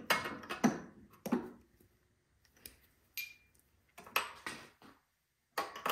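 Metal hand tools clinking and tapping as a wrench and socket are worked onto a spark plug in a generator's cramped engine compartment. A handful of separate clinks and knocks, one with a short metallic ring about three seconds in.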